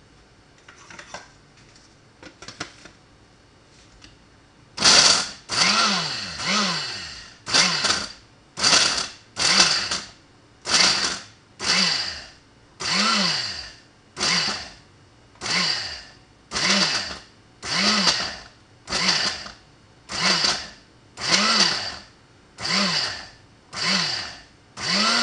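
Countertop blender pulsed in short bursts, about one a second, each whir rising and falling in pitch as the motor spins up and winds down, chopping sliced bread into breadcrumbs. A few light knocks come before the first pulse.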